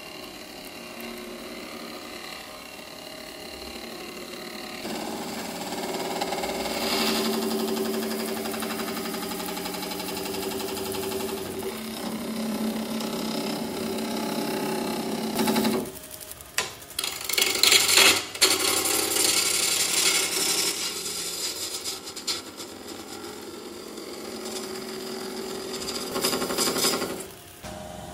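Gouge cutting a spinning blank of hawthorn burl cast in epoxy resin on a wood lathe, peeling off long ribbons of resin. The cutting noise swells and eases as the tool is worked, with a loud, uneven stretch of heavy cutting a little past halfway, and drops away briefly near the end as the tool comes off the work.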